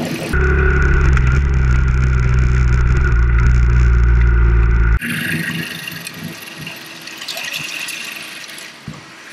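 Motorcycle engine running steadily while riding in traffic, recorded on an action camera. About half a second in, the sound jumps to a loud, muffled, low steady drone. About five seconds in, it cuts abruptly to quieter engine and road noise with more hiss.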